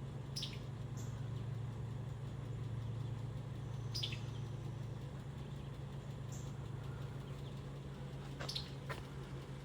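Summer tanager giving short, sharp calls, about six scattered notes that drop quickly in pitch, two of them close together near the end, in answer to a recorded call. A steady low hum runs underneath and fades somewhat after the first few seconds.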